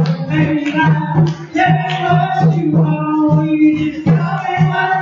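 Live music: a man singing a melody over a strummed acoustic guitar, with a steady beat.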